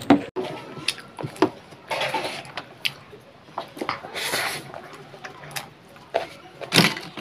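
Close eating sounds: chewing and mouth noises as tomato rice is eaten by hand, with fingers scraping and tapping on a steel plate in scattered small clicks.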